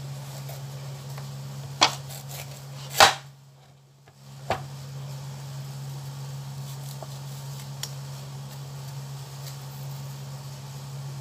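Kitchen knife peeling a chayote by hand: a few short clicks and scrapes of the blade, the loudest about three seconds in, over a steady low hum.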